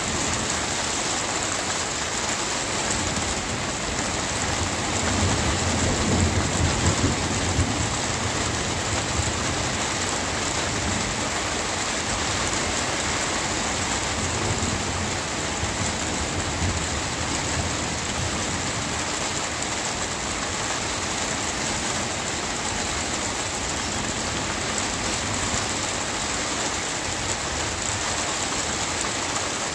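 Steady rain falling throughout, with a low rumble of thunder that swells a few seconds in and fades out after several seconds. A fainter rumble comes near the middle.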